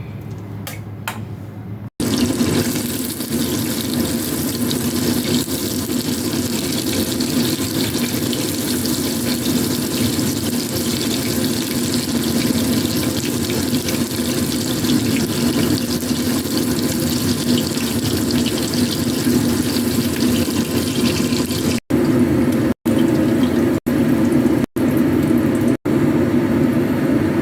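Water running steadily from a tap into a sink. It starts about two seconds in and breaks off briefly several times near the end.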